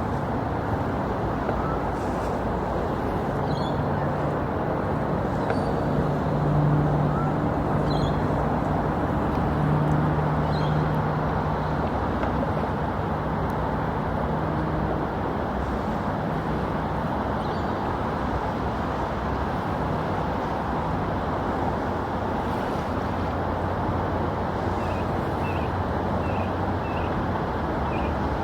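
Steady rumbling jet noise of a Boeing 787 airliner on final approach, with a low hum that swells and is loudest a few seconds in, then fades back into the rumble. Faint high chirps come near the end.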